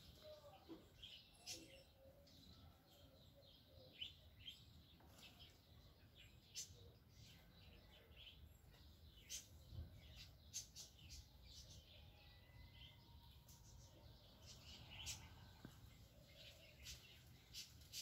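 Near silence with faint, scattered bird chirps: short, irregular high calls every second or so.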